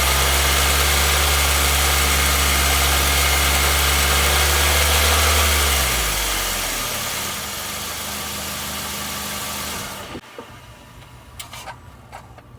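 2016 Nissan Versa's HR16DE four-cylinder engine running steadily, then dropping in speed about six seconds in and running lower. Near the end it goes much quieter, leaving a few sharp clicks. The owner says it is still knocking, a knock HR16DE engines are reported to give at certain rpm.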